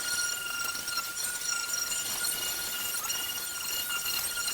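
Electric sander running on the wooden exterior of an old trunk: a steady high whine over a gritty hiss, dipping briefly in pitch a few times.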